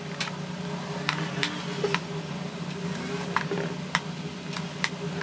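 Scattered light clicks and taps, about eight in five seconds, as flour is sprinkled and tapped into a buttered cake pan, over a steady low hum.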